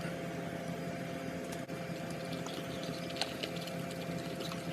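Steady low hum with a few faint, soft clicks.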